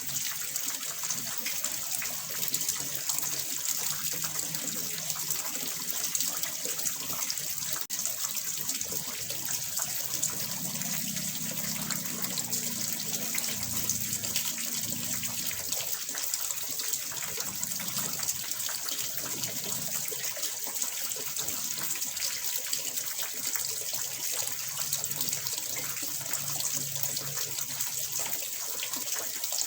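Water in a small fish pond splashing and trickling steadily, a constant hissing wash with no breaks.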